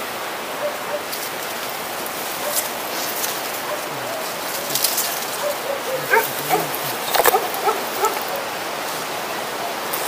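Paraglider risers and lines being dragged and pulled through dense shrubs: leaves rustling and twigs crackling and snapping, over a steady rushing background. A few short calls come in the background about four to seven seconds in.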